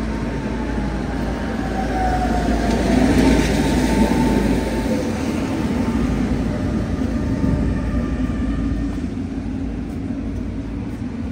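A Tatra T3 tram pulling into a stop on wet rails: a steady rumble of wheels on the track with a whine that falls in pitch as it slows over the first few seconds, loudest as it passes close by.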